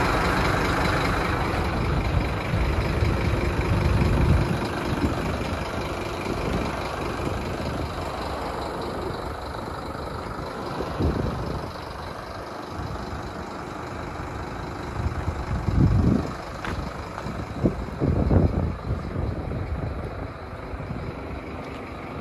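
Scania G270 truck's diesel engine idling steadily, with several short low rumbles of wind buffeting the microphone.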